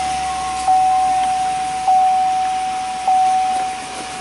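A warning chime dinging about every 1.2 seconds, each ding fading slowly into the next, over the low hum of a 2003 Chevy Silverado's 6.0L V8 idling just after a cold start.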